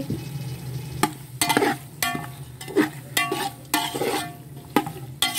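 Perforated metal skimmer spoon stirring raw chicken pieces through hot oily masala in a metal pot: irregular scrapes and knocks against the pot, some with a short metallic ring, over the sizzle of the chicken starting to fry.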